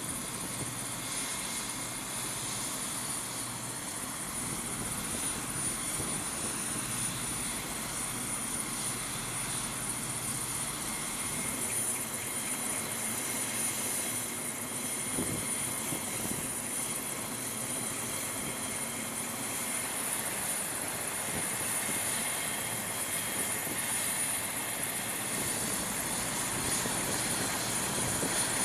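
MQ-8C Fire Scout unmanned helicopter running with its rotors turning: a steady turbine and rotor noise with a high whine held throughout.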